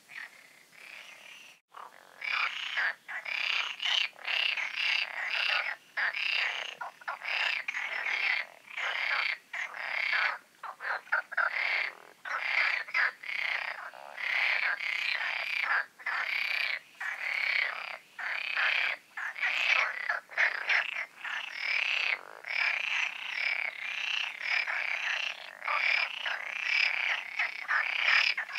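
A dense chorus of many frogs calling together from the ponds, their calls overlapping and breaking off in quick gaps. It is fainter for the first two seconds, then loud.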